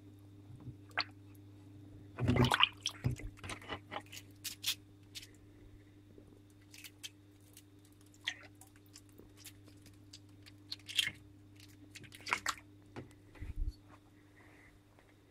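Irregular clicks, knocks and wet squishing as a short-necked turtle is handled in and out of its tank water, with a louder burst of handling noise about two seconds in, over a steady low hum.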